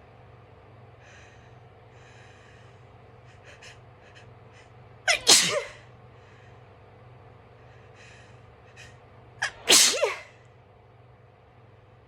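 A woman sneezing loudly twice, about four and a half seconds apart, each sneeze led by a quick sharp catch of breath. Soft sniffles come in the build-up before each, from a nose she is not allowed to blow.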